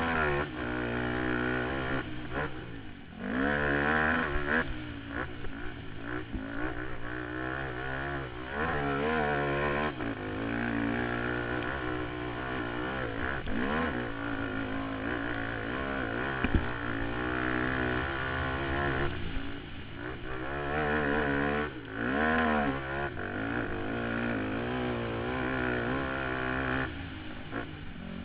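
Suzuki QuadSport Z400 ATV's single-cylinder four-stroke engine, heard from on board as it is ridden hard on a dirt track, its revs climbing and falling with the throttle and gear changes. The revs drop sharply about three seconds in and again a little past twenty seconds, and there is one sharp knock around the middle.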